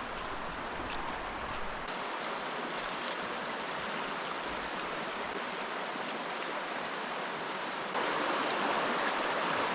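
Stream water flowing and babbling, steady throughout and louder from about eight seconds in; low wind rumble on the microphone during the first two seconds.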